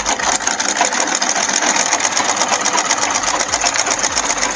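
Butterfly domestic sewing machine stitching at a steady speed, a rapid, even clatter of the needle mechanism.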